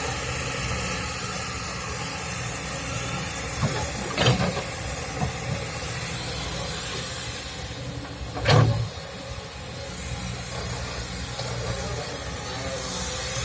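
Kobelco SK200-8 excavator's diesel engine running steadily under a hiss, with two heavy clanks, one about four seconds in and a louder one near eight and a half seconds.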